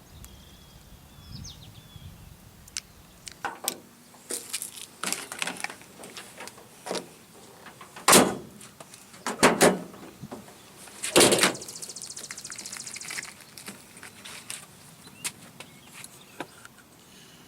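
Clicks and knocks from handling a stainless-steel pickup tailgate lock and its stick-on padding. They come scattered throughout, with three louder knocks about 8, 9½ and 11 seconds in.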